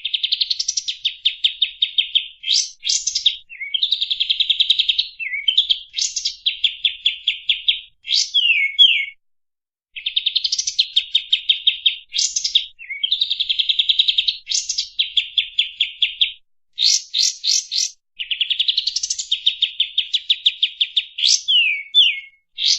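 Kapas tembak (olive-winged bulbul) singing its rapid-fire 'tembakan' song: long runs of fast, tightly packed high repeated notes, with quick sweeping whistles between them, broken by short pauses.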